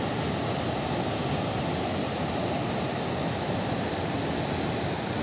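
Fast mountain river running over boulders in white-water rapids: a steady rush of water.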